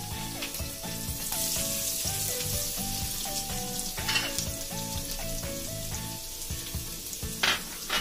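Chopped garlic and cumin seeds sizzling in hot ghee in a kadhai, stirred with a wooden spatula, with a couple of sharp clicks about four seconds in and near the end. Background music with a stepping melody plays throughout.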